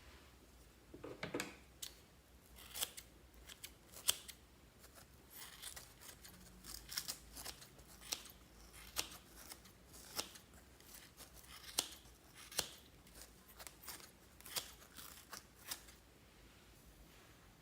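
Glossy slime being worked by hand, giving a run of sharp, wet clicks and snaps at uneven spacing, roughly one a second.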